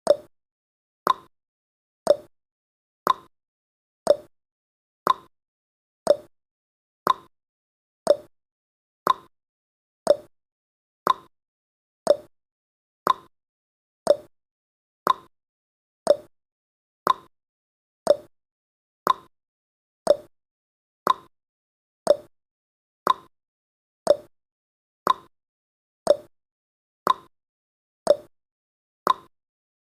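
Countdown timer's clock-tick sound effect, one short, sharp tick each second.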